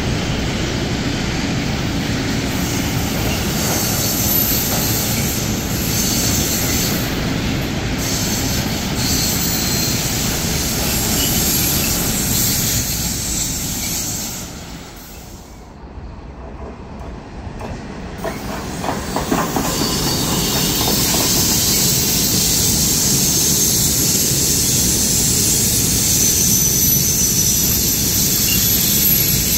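Trains hauled by class 193 Siemens Vectron electric locomotives rolling past, a loud steady rumble of wheels on rails with high wheel squeal and some clickety-clack. The sound dips for a few seconds just past the middle, then a second train passes just as loudly.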